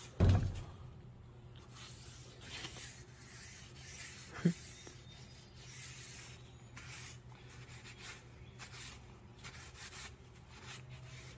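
Paper towel wiping over an oil-coated wooden rifle stock in soft, repeated rubbing strokes, after a low thump right at the start.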